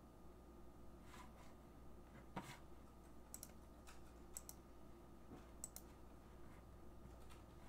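Faint, sparse key presses on a Logitech computer keyboard: about ten scattered clicks, several in quick pairs, over a faint steady hum.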